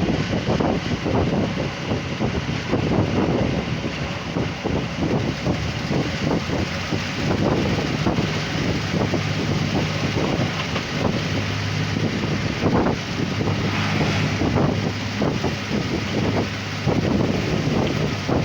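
Wind buffeting the microphone at the open drop-down window of the moving ADe23 diesel railcar, over the rumble of the train running on the narrow-gauge line. A steady low engine hum comes up in the middle.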